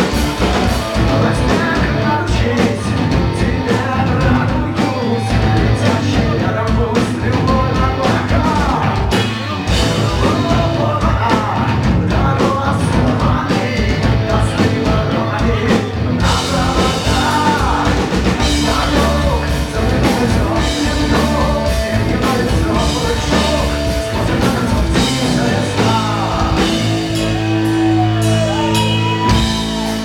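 Live rock band playing loud: electric guitar, bass guitar, drum kit and violin, with vocals. Near the end the violin comes forward with sliding notes.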